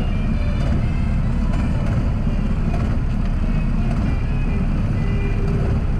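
Go-kart engine running steadily at low speed, heard up close as a dense low rumble, with faint music in the background.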